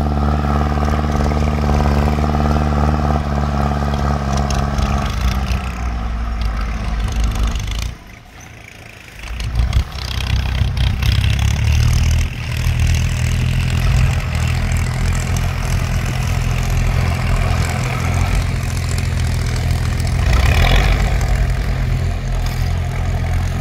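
Kubota L4708 tractor's four-cylinder diesel engine running loud under load while it pulls a disc plough through dry field soil. The engine note lowers about five seconds in, goes briefly quieter around eight seconds in, then runs loud and steady again.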